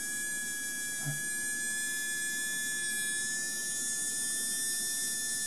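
Small electric motor from a Mantua 0-4-0 model locomotive running on the bench with a steady high whine and hum. It is running smoothly, with its commutator freshly cleaned of carbon and its bearings oiled.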